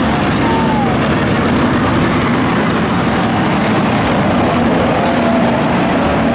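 A field of V8 enduro race cars running together on the track, a loud, steady blend of many engines with no single one standing out.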